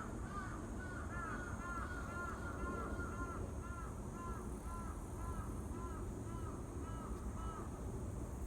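An animal calling in a rapid series of short arched notes, about two to three a second, sometimes overlapping, stopping near the end. Under it are a steady high chirring of insects and a low rumble.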